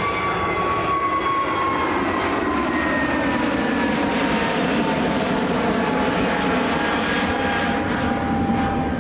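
Airbus A319neo jet engines, a steady rumble with a whine that slowly falls in pitch as the airliner passes close by.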